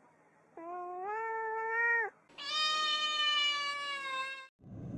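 A cat meowing twice: a drawn-out meow that steps up in pitch near its start, then a longer, higher meow of about two seconds.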